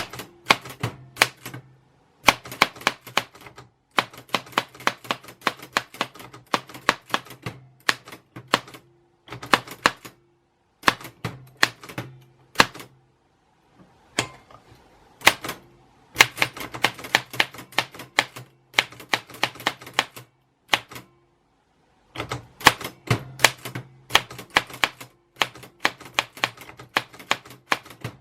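Typewriter keys striking in quick, uneven runs of clicks, broken by a few short pauses.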